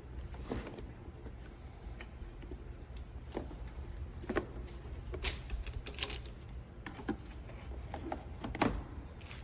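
Irregular light clicks and knocks, about a dozen scattered through, over a steady low hum.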